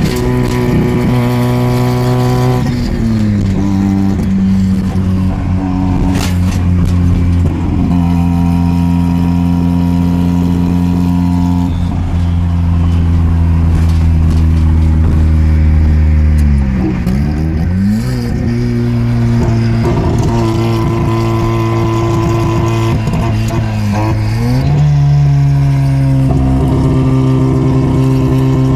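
Turbocharged rotary engine (a Turbo II swap) in an FB Mazda RX-7, heard from inside the cabin while driving. It holds a steady drone for several seconds at a time, and the revs drop, dip sharply and climb again a few times.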